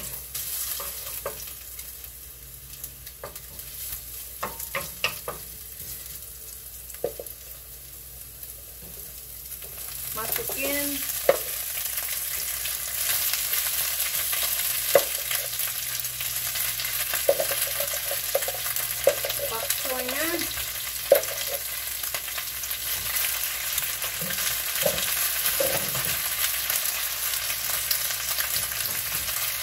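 Garlic and ginger sizzling in hot oil in a nonstick frying pan, stirred with a wooden spatula that scrapes and knocks against the pan. About ten seconds in the sizzle grows louder as fresh bok choy goes into the pan and is stirred.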